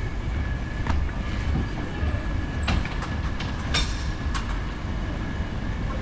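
Steady low rumble of a heavy vehicle's engine idling, with a steady high whine over it and a few sharp clicks, the strongest about four seconds in.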